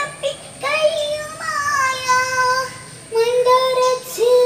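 A young girl's voice singing a Malayalam poem in the chanted style of kavitha recitation: long, drawn-out melodic phrases with brief pauses for breath.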